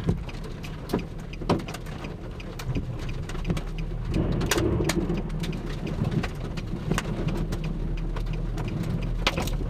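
Rain during a tornadic thunderstorm, with large drops striking near the microphone as irregular sharp ticks over a steady low rumble that gets louder around the middle.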